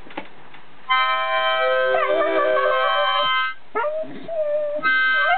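A harmonica playing held chords while a Staffordshire Bull Terrier howls along in a wavering, sliding voice. The dog joins about two seconds in, gives a short rising yelp when the harmonica stops briefly near the middle, and keeps howling as the harmonica starts again near the end.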